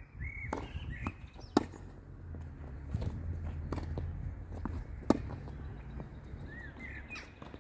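Tennis ball struck by rackets during a doubles rally: sharp pops, the two loudest about a second and a half in and about five seconds in, with fainter hits and bounces from the far side between them. A bird chirps briefly near the start and again near the end.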